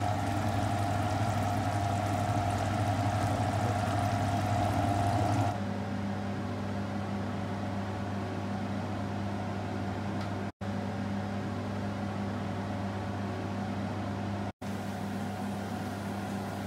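A steady low electric hum runs throughout, with a hiss of the keema simmering in its pot layered over it for the first five seconds or so. The sound drops out briefly twice.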